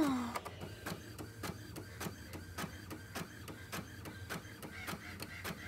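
Epson WorkForce WF-3640 inkjet printer printing a page, its mechanism clicking steadily about four times a second over a low running hum. A brief falling tone sounds at the very start.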